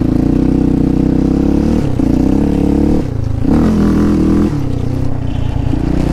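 Yamaha Raptor 700 sport ATV's single-cylinder four-stroke engine running under throttle while being ridden. The revs dip and climb again a few times as the throttle comes on and off.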